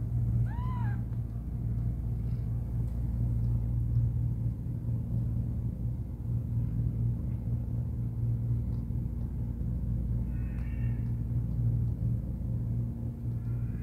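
Newborn kittens, a few hours old, giving thin high mews: one about half a second in that rises and falls, another around ten seconds in, and a fainter one near the end, over a steady low hum.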